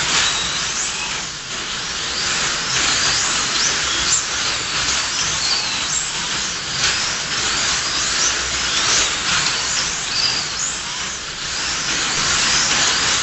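1/24-scale slot cars racing: their small electric motors whine continuously over a steady hiss, with many short rising and falling whines as the cars accelerate and brake through the corners.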